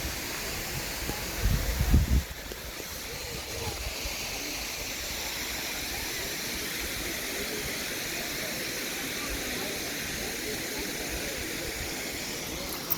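Steady rush of falling water from a waterfall. A few brief low rumbling bursts come about two seconds in.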